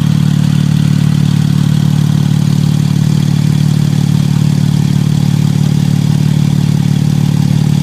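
Porsche 997 GT2's twin-turbo flat-six engine running at a steady, even speed, with no revving.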